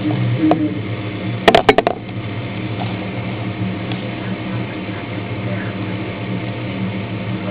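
A steady low hum, with a quick run of about five sharp knocks about a second and a half in.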